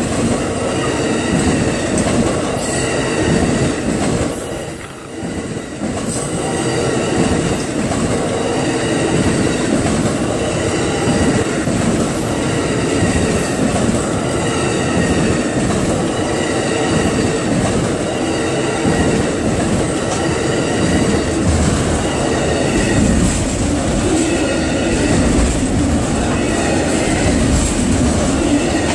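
Amtrak Auto Train's Superliner passenger cars and autorack car carriers roll past close by, their wheels clicking in a steady rhythm over rail joints. A faint high wheel squeal runs over the rumble, and the sound dips briefly about five seconds in.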